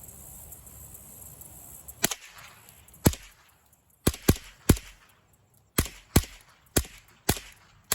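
Savage 64F semi-automatic .22 LR rifle firing about ten shots in quick, uneven succession, starting about two seconds in, each a sharp crack.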